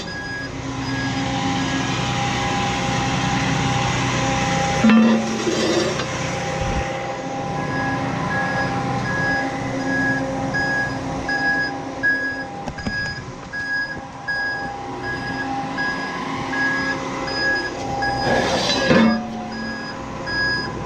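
Aerial ladder truck's engine running at raised idle to drive the hydraulics for the outriggers, with the outrigger warning alarm beeping over it in a steady on-off pattern. Two brief knocks or scrapes, about five seconds in and near the end, as the outrigger pads are handled.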